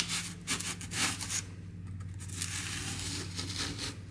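Razor saw rasping back and forth in a groove cut into a foam rudder, a few irregular scratchy strokes in the first second and a half, then fading out over a low steady hum.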